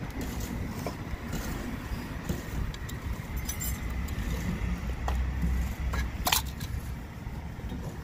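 Small metal clicks and clinks as a fire-sprinkler valve tamper switch is handled and worked with a screwdriver, the sharpest about six seconds in, over a steady low rumble of street traffic.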